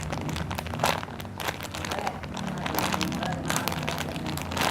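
A foam burger squishy being squeezed and handled close to the microphone: irregular soft crinkling and rustling strokes, over a steady low background hum.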